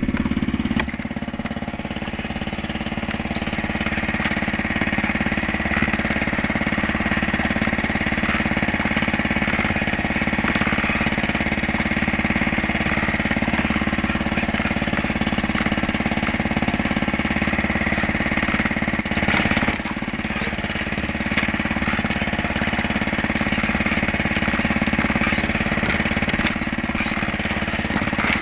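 Engine of a small outrigger fishing boat running steadily, an even mechanical hum with no change in speed.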